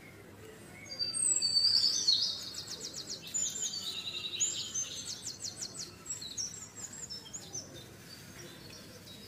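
Bird song: a run of high chirps and quick trills starting about a second in and going on for several seconds, loudest at the start, over a faint steady background hiss.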